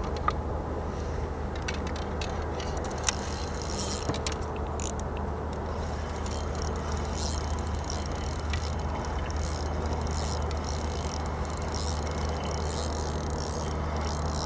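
Spinning reel being cranked on a feeder rod as a hooked fish is played and reeled in toward the boat, a fine ticking rasp that comes and goes and is busier in the second half. A steady low hum runs underneath.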